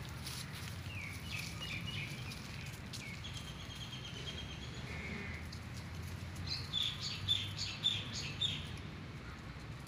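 Birds chirping in short, high notes, with a quick run of chirps about two-thirds of the way through, over a low steady rumble.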